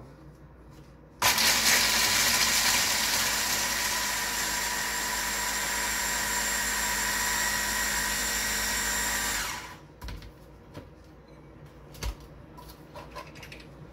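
Electric hand blender with a chopper attachment grinding walnuts into a meal. The motor starts suddenly about a second in, runs steadily for about eight seconds, then winds down, followed by a few light clicks and a knock.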